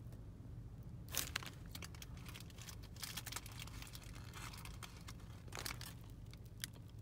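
Paper wrapper around a biscuit sandwich crinkling and rustling in irregular bursts as it is handled, over a low steady hum.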